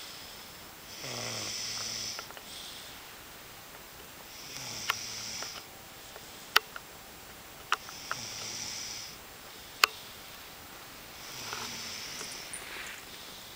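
Snoring so hard: four long snores about three seconds apart, each with a low rumble under a hissing, whistling breath. A few sharp clicks fall between the snores.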